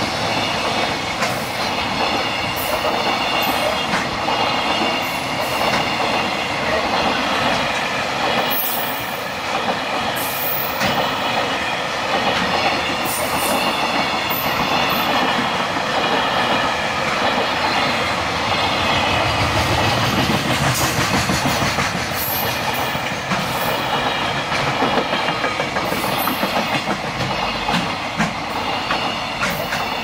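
Container freight train of flat wagons rolling past at speed close by: a steady rumble, with sharp clacks from the wheels over the rail joints throughout.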